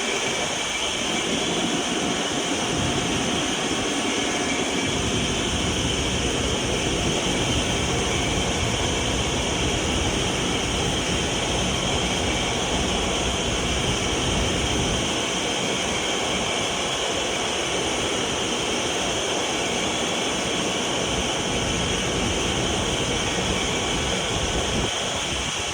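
Vacuum cleaner motor running steadily under power: a constant rushing noise with a high whine over it.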